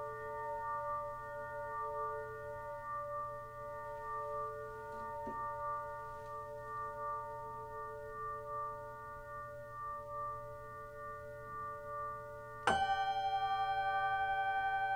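Small hanging cymbal ringing in several clear, sustained tones with a slow pulsing beat. Near the end it is struck sharply and rings on, louder, with a new set of tones.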